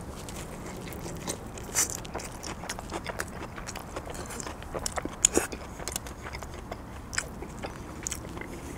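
Close-miked chewing of a mouthful of pizza: soft, irregular mouth sounds with crunches from the crispy crust and crispy bits, a few louder crunches about two seconds in and around five seconds in.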